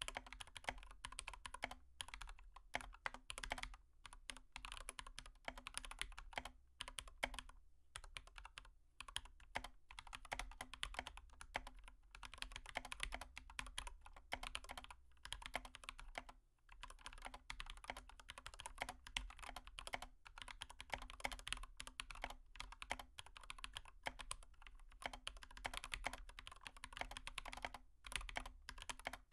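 A steady stream of light, irregular clicks and taps, like typing, under a faint steady hum.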